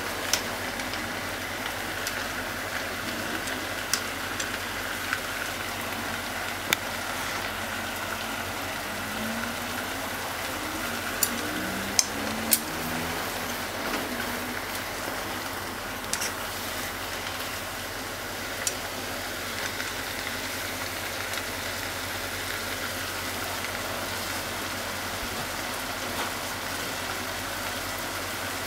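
Chicken and diced onion sizzling steadily as they fry in a pot. Sharp clicks now and then as wooden chopsticks stirring them knock against the pot.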